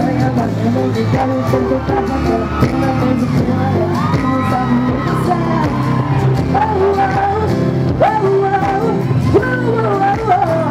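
Live music played through a concert PA, with a woman singing lead into a handheld microphone and shouts over it.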